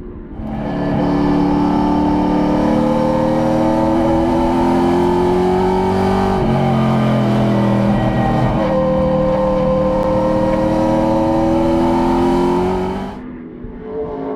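Race car engine at high revs, heard loud and close, its pitch climbing slowly. About six and a half seconds in the revs drop sharply, then climb again a couple of seconds later, and the sound cuts off abruptly near the end.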